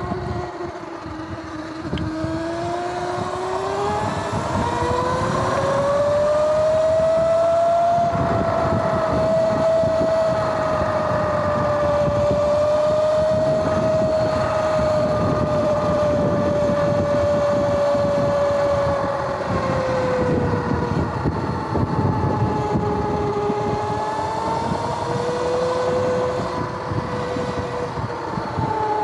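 Sur-Ron electric dirt bike under way: a whine from its electric motor and chain drive, with a rushing noise underneath. The whine climbs in pitch over the first several seconds as the bike picks up speed, holds steady, then drops about two-thirds of the way in and rises briefly again. The bike has had its belt drive converted to a 420 primary chain, which makes it louder and noisier than stock.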